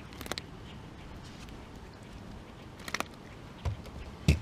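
A few scattered clicks and knocks on a boat, with a louder thump near the end, as a just-landed smallmouth bass is lifted aboard and handled, over a steady low background of wind and water noise.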